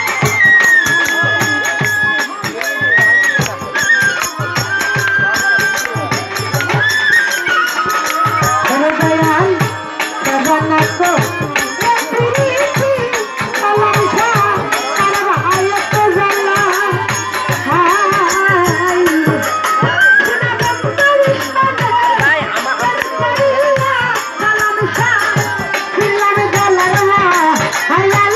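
Live Bengali Baul folk music: a band plays a melody over a steady repeating drum beat with jingling rattle-type hand percussion.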